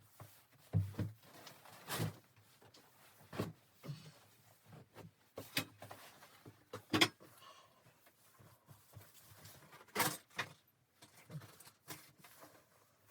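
A series of irregular, separate knocks and clicks, about seven in all, the loudest about seven seconds in.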